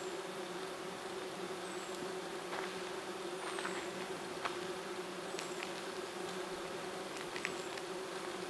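Steady hum of many bees and other insects foraging in the blossoms of flowering lime (linden) trees overhead. Faint short high whistles and ticks sound now and then above it.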